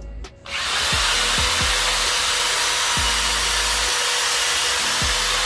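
Power drill driving a screw into a 2x2 wooden frame piece, starting about half a second in and running steadily for about five seconds before stopping near the end.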